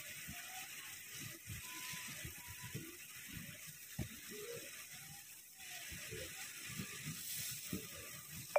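CO2 laser cutter's stepper motors driving the cutting head, whining in short tones that glide up and down as the head speeds up, slows and changes direction, with small mechanical ticks, over a steady hiss.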